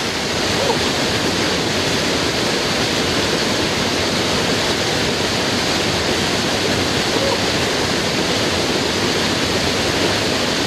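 Steady, unbroken rush of a swollen mountain stream tumbling over rocks, carrying much more water than normal after heavy rain.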